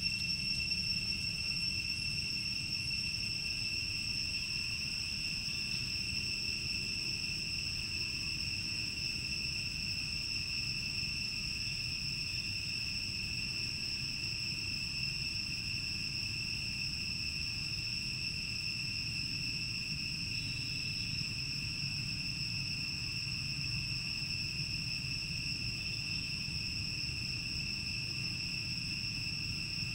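Insects droning steadily: one unbroken high-pitched tone with a fainter, higher overtone, over a low background rumble.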